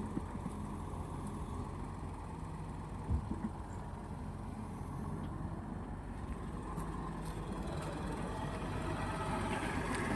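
A motor or engine running steadily at low speed, with a single knock about three seconds in.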